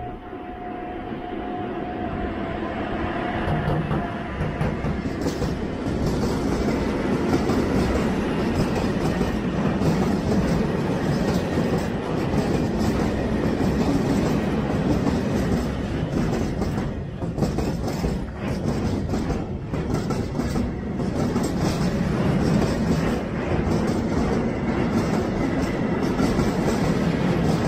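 Freight train of open box wagons behind a TRAXX electric locomotive passing at close range, its wheels clattering over the rail joints. The rumble builds over the first few seconds as the train arrives, then runs on steadily with a continuous clatter of wheel clicks.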